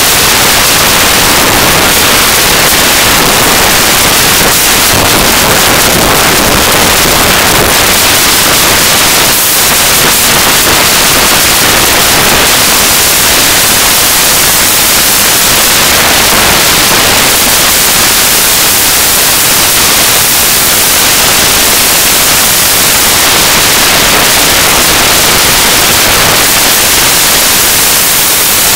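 Loud, unbroken hiss-like noise from the microphone of a camera mounted on a rider going down a dirt trail. The noise swamps any other sound, which is why the recording is unusable.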